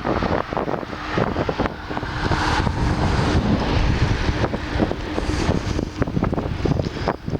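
Vehicle driving along a city street: steady road and engine noise with wind buffeting the microphone in rapid irregular gusts and a faint steady hum.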